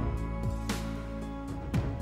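Instrumental background music: held notes over low drum hits.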